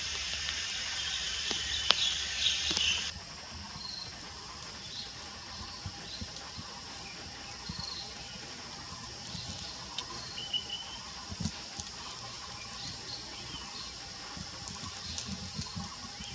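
Faint short bird calls over steady outdoor background noise. A high hiss in the first three seconds cuts off sharply, and a few soft low thumps are scattered through.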